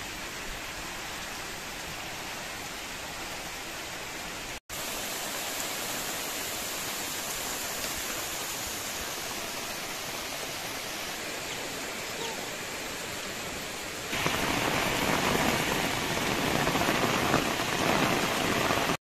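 Steady rain falling, an even hiss that grows louder about three-quarters of the way through.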